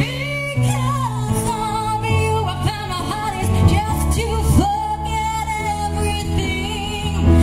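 Pop song: a woman singing a melody over instrumental backing with held bass notes.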